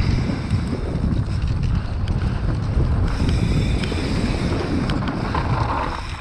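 Wind buffeting the microphone of a camera on a mountain bike riding down a dirt and gravel trail, over the tyres crunching on loose ground and scattered sharp clicks and rattles from the bike. The noise eases near the end as the bike slows.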